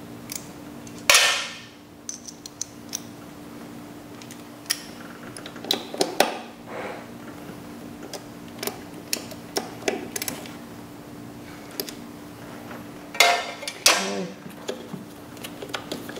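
Ratchet and socket on the ignition coil pack's bolts and nuts, with scattered metallic clicks and clinks of tool and hand work in the engine bay. Two louder clatters stand out, one about a second in and one near the end.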